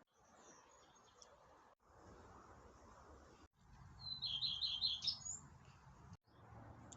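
A bird singing a short phrase of about five quick repeated high notes, with a few faint high chirps earlier.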